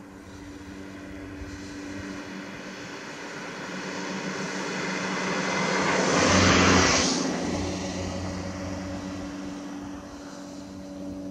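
An aircraft flying over, its engine drone building slowly to a peak about six or seven seconds in and then fading away, with steady low engine tones throughout.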